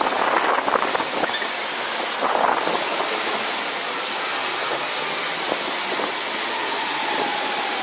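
Shanghai Maglev train running along its elevated guideway: a steady rushing noise, with a faint whine that slowly falls in pitch coming in near the end.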